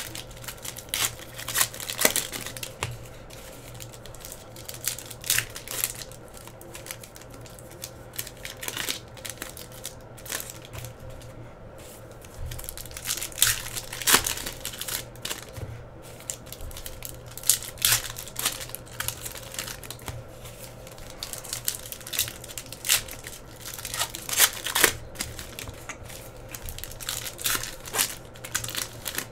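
Foil trading-card pack wrappers crinkling and tearing as the packs are opened by hand, in irregular sharp crackles, over a low steady hum.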